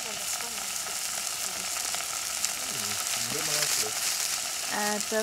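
Burger patties sizzling on a round steel griddle plate over a wood fire, a steady frying hiss as raw patties are laid on. A voice calls out briefly near the end.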